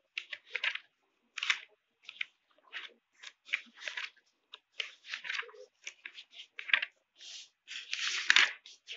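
Pages of a thick paper textbook being flipped by hand: a quick, irregular series of short paper rustles and flicks, with a longer, louder riffle near the end.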